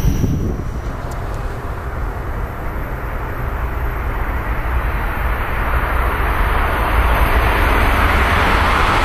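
Passenger train approaching on the tracks: a low rumble with a rushing noise that builds steadily louder as it nears.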